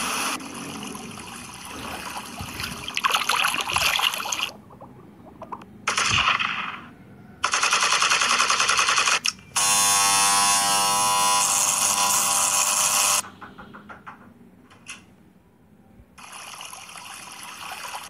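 A run of short sound-effect ringtone previews played one after another from a phone app, with brief gaps between them. First a rain-like hiss, then several short clips, one of them a fast, even rattle, and near the end a wind-like hiss.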